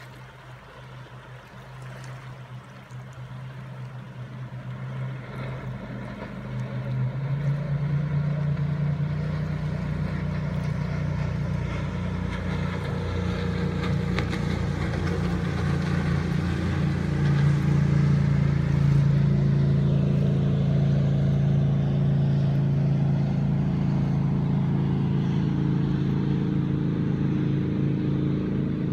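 Jet boat's V8 engine running at speed, growing from faint to loud over the first seven seconds or so, then holding a loud, steady drone.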